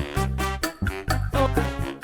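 Upbeat background music with a steady, bouncy beat, bass and brass-like pitched notes.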